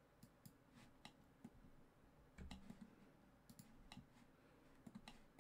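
Faint, scattered clicks of a computer mouse and keyboard, a dozen or so at irregular intervals, over near silence.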